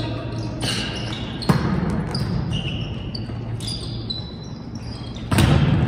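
Volleyball rally in a sports hall: sharp smacks of hands hitting the ball, with short high sneaker squeaks on the hall floor between them. A loud hit comes about a second and a half in, and a louder thud near the end.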